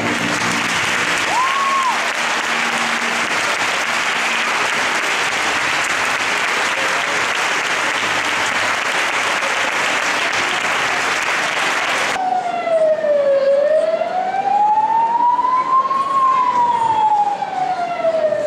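Audience applauding, cut off abruptly about twelve seconds in by a recorded siren wail that slowly falls, rises and falls again.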